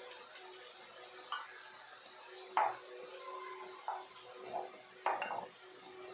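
Hands mixing masala-coated fish pieces in a glass bowl: wet squishing with several light knocks and clinks against the glass. The loudest knock comes about two and a half seconds in, and a sharper double clink about five seconds in, over a steady hiss that fades about four seconds in.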